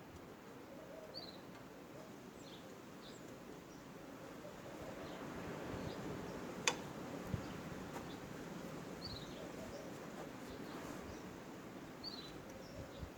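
Faint outdoor background with a few short bird chirps, and a single sharp click about seven seconds in.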